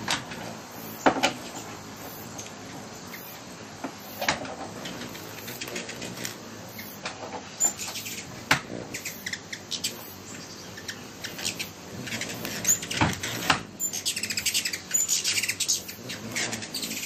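Hummingbirds hovering and darting, their wings whirring, with short, sharp, high chirps. The chirps come thick and fast in a flurry a few seconds before the end.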